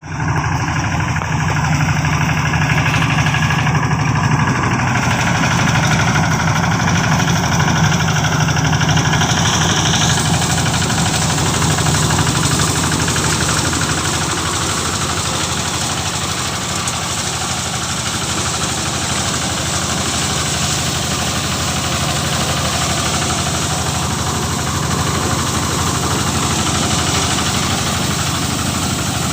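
Engine-driven rice thresher (power thresher) running steadily with a constant low hum. About ten seconds in, a brighter hissing noise joins and continues.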